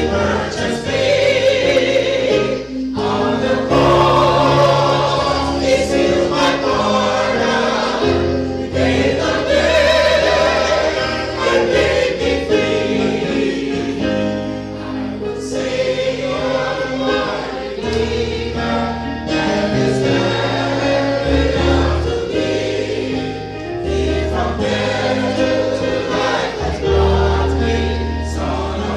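Choir singing a gospel hymn, with instrumental accompaniment and a strong bass line.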